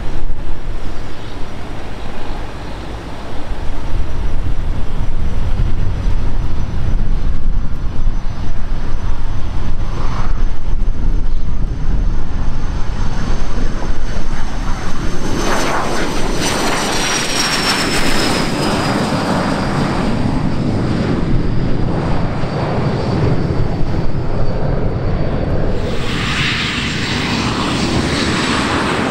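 Business-jet turbofan engines on the runway, a Cessna Citation III's among them: a steady high whine over wind rumble on the microphone. About halfway through the jet noise swells and the whine drops in pitch as the aircraft rolls past. Near the end a different jet's noise, a Gulfstream's, takes over.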